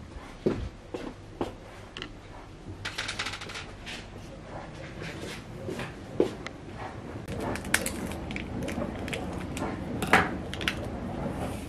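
Footsteps thudding on a wooden floor, about three in the first second and a half, then scattered clicks, taps and rustles as a glass and a drink sachet are handled on a kitchen counter.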